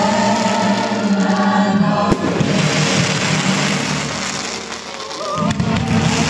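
Fireworks going off over loud show music: about two seconds in a single sharp bang, followed by about three seconds of dense hissing and crackling from the fireworks that covers the music, which comes back up near the end.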